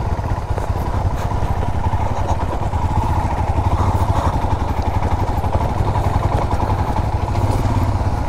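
Adventure motorcycle engine running at a steady, moderate throttle while the bike is ridden along a dirt trail, heard from on the bike as an even, fast-pulsing drone.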